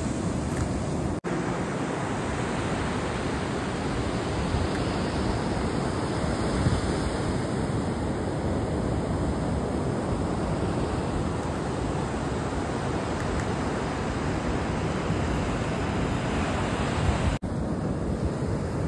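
Steady loud roar of heavy surf breaking on the beach in a rough sea, mixed with wind buffeting the microphone. The sound drops out for an instant twice.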